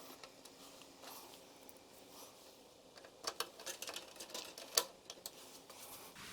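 Scattered clicks and light rustling from hands handling computer parts, with a cluster of sharp clicks from about three to five seconds in.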